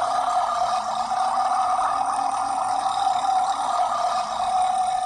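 One very long burp, held without a break at a single steady pitch.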